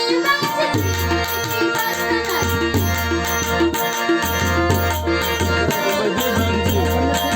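Indian folk music with drums keeping a steady beat, high regular ticks over it and a heavy bass pulse.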